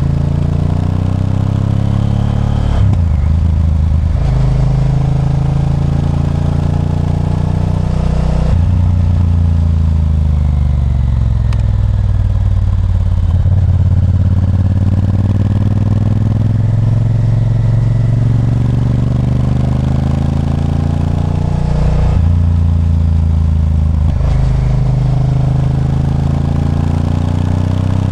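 Honda Varadero 1000's 90-degree V-twin engine under way, revs climbing and then dropping sharply at several gear changes, with a stretch where the revs fall and pick up again.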